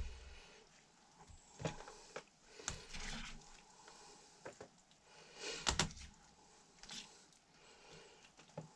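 Scattered light clinks and knocks of cutlery against plates and the pie dish while pie is served, with the loudest knock about two-thirds of the way through.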